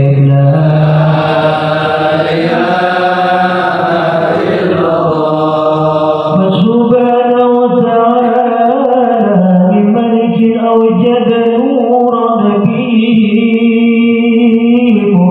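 A male voice chanting Arabic religious verses, with long held notes that waver and slide slowly in pitch.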